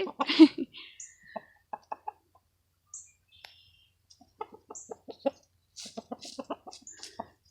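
Rhode Island Red rooster clucking, a string of short soft clucks that comes thicker in the second half.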